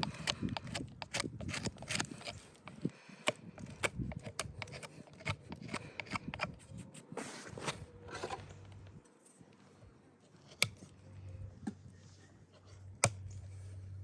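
Farrier's trimming tools cutting and scraping a horse's overgrown hoof: a rapid run of sharp snips and scrapes that thins out past the middle into two single sharp clicks. A low steady hum comes in near the end.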